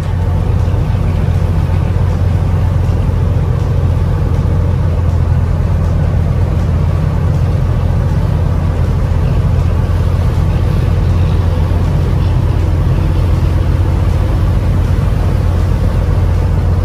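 Fishing boat under way: its engine runs with a steady, low drone, over water rushing and splashing along the hull and in the wake.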